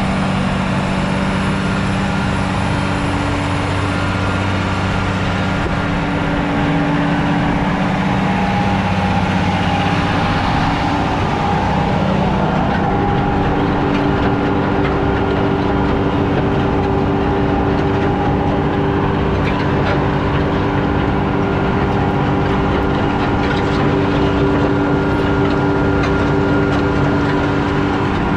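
Diesel engine of an ABG Titan 273 asphalt paver running steadily, its tone shifting between about three and twelve seconds in, then steady again.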